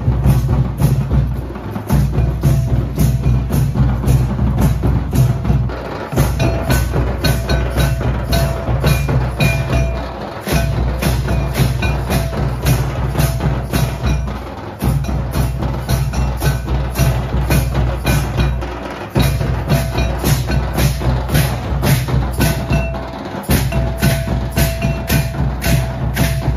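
Santal festival percussion: drums and hand cymbals beating a fast, steady rhythm of sharp strikes. The deep drum sound drops out briefly about every four seconds, and a held higher note sounds at times.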